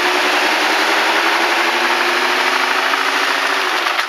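Old Mitsubishi Lancer's engine held at steady high revs while a drive wheel spins in a burnout, with the tyre smoking against the ground. The revs cut off near the end.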